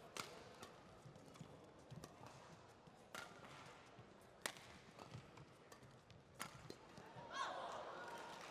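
Badminton rackets striking a shuttlecock during a doubles rally: sharp smacks a second or more apart, with softer knocks of players' footwork on the court between them. A brief wavering squeal comes near the end.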